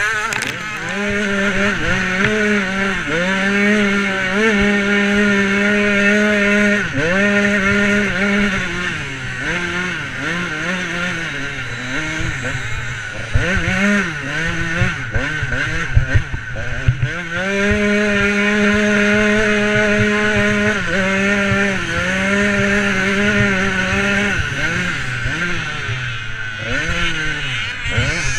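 KTM 85 two-stroke motocross bike engine revving hard while riding, its pitch rising and falling again and again with throttle and gear changes, and held steady at high revs for several seconds past the middle. A few sharp knocks come around the middle.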